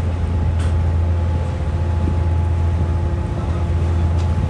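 A small car ferry's engines running steadily: a low drone with a faint steady whine above it. A light click about half a second in and another near the end.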